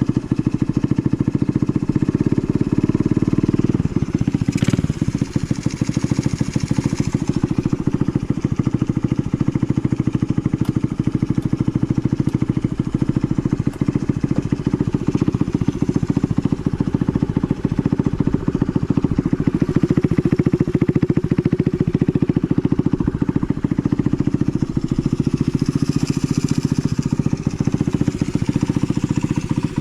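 Honda Jazz AC09's small single-cylinder four-stroke engine idling steadily, with no abnormal noises.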